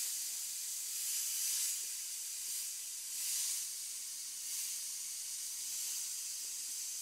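Iwata Eclipse airbrush spraying, a steady high hiss of air that swells louder a few times as the trigger is pulled back for short strokes of opaque white paint.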